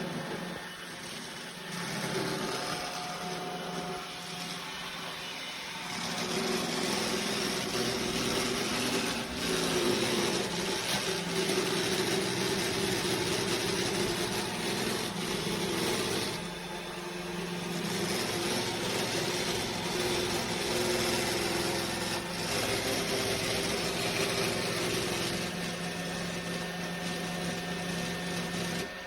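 iRobot Roomba j7+ robot vacuum running: a steady motor whir and hum with a broad hiss, growing louder about six seconds in and dipping briefly past the middle.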